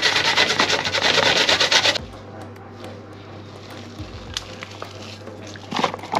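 A peeled onion being grated on a metal box grater: loud, quick repeated strokes that stop abruptly about two seconds in. After that comes a much quieter stretch of a spoon scooping minced meat from a plastic tray, with a few light scrapes and taps near the end.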